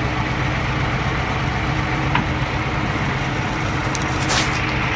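Tractor engine running steadily at a constant speed, with a short hiss about four seconds in.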